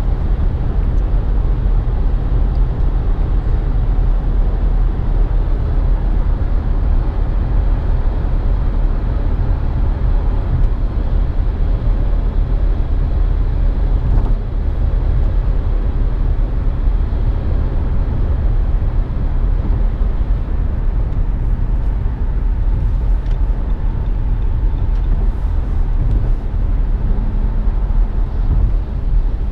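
Steady road and wind noise inside a 2017 Nissan Rogue's cabin at highway speed, about 80 mph on cruise control: a low, even rumble of tyres on pavement. A single brief knock comes about halfway through.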